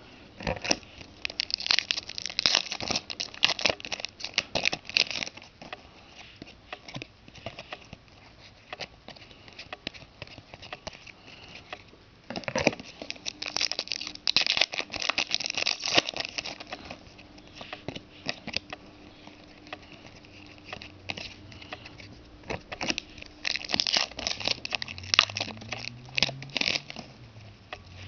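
Trading-card pack wrappers being torn open and crinkled, in three bouts of crackling rustle with quieter handling between them.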